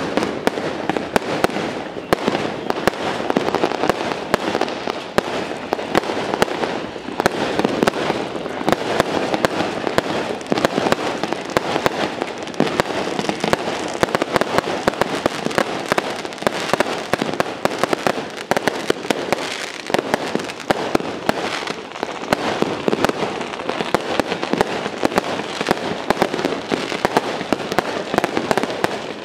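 Strings of firecrackers going off in a dense, continuous rattle of sharp bangs, with no let-up.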